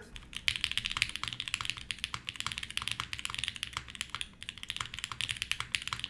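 Fast, continuous typing on a Navi60 custom mechanical keyboard with Tangie switches, an aluminium plate and GMK keycaps, in its O-ring mount: a dense run of keystrokes with a brief pause a little past four seconds.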